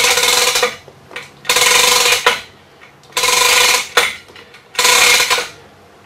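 A hoist lifting a heavy jackshaft and its V-belt pulley out of its pillow-block bearing housing, in four short ratcheting mechanical bursts about a second and a half apart.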